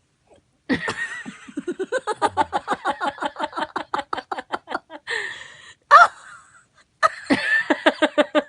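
Laughter in a long run of rapid, evenly spaced 'ha-ha-ha' pulses, broken by two sudden sharp bursts about six and seven seconds in, then more quick laughter.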